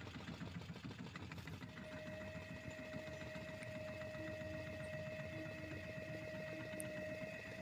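Small fishing boat's engine idling faintly, a rapid low chugging, with a steady high whine coming in about two seconds in.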